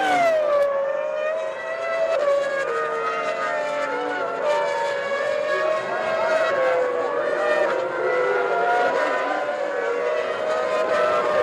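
Several Formula One V10 engines running together, their notes overlapping at different pitches. One drops sharply in pitch at the start, then they hold fairly steady with small rises and dips in revs.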